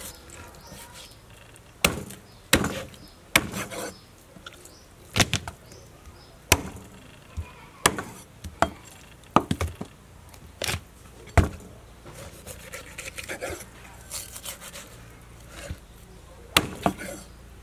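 Large kitchen knife chopping through pork ribs onto a thick wooden chopping block: about a dozen sharp chops at irregular intervals, with a lull about two-thirds of the way through before two more chops near the end.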